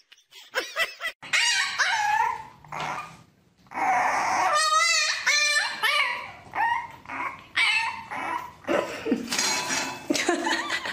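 Dog whining and yipping: a run of short, high cries that slide up and down in pitch, one with a fast wavering pitch a little before the middle, then short sharp yips in the last few seconds.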